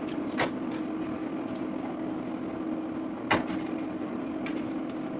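Steady low hum with two sharp clicks about three seconds apart, from a self-service ticket machine being worked through its screens to print tickets.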